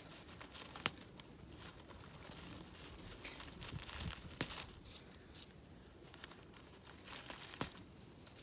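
Celery plants being picked by hand: leaves and stems rustling and tearing, with a few sharp snaps.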